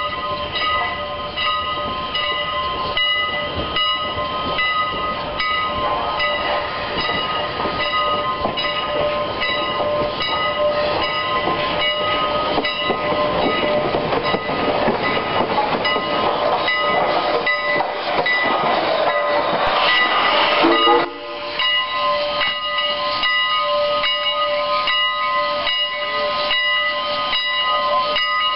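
Strasburg Rail Road No. 89, a 2-6-0 steam locomotive, rolling past close by, its running noise building to its loudest about two-thirds through. Throughout, a bell rings steadily with evenly repeated strokes. The locomotive noise cuts off abruptly about two-thirds through, and the bell keeps ringing.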